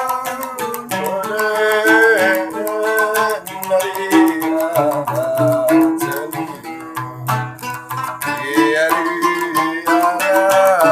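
A large Sasak gambus, a plucked lute, played solo with rapid picked notes carrying a melody over a low bass note.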